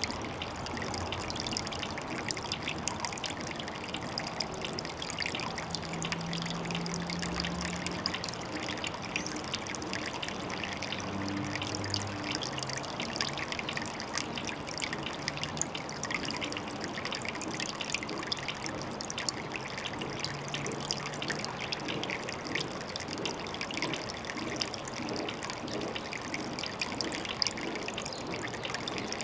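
Water trickling steadily at a pond, a constant dense patter of small splashes.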